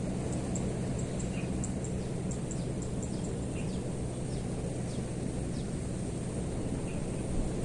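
Birds calling: many short, high chirps that sweep downward, scattered irregularly over a steady low rumble of outdoor background noise.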